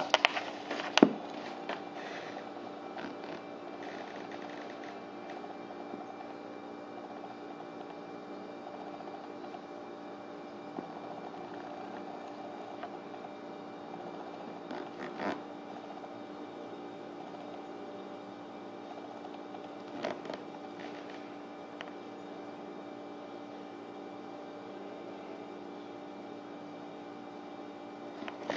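A steady background hum with a few fixed tones, broken by a few short knocks about a second in and two more later, typical of a hand-held camera being moved and handled.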